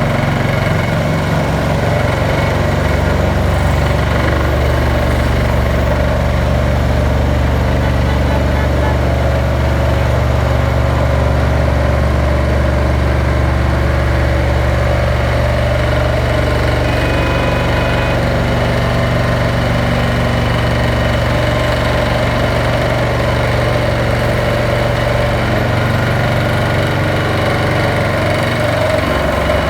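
Large engine of heavy construction machinery running at a steady speed, a constant low hum that shifts slightly in pitch about three seconds in and again near the end.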